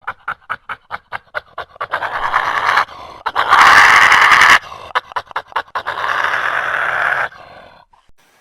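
Animal-like panting from a creature sound effect: quick rasping breaths about five a second, swelling into a loud hoarse hiss about halfway through, then more quick breaths that fade out near the end.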